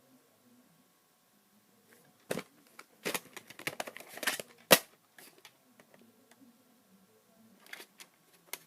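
Handling noises of plastic VHS tape cases: a scatter of clicks and knocks, with one sharp, loud click about halfway through.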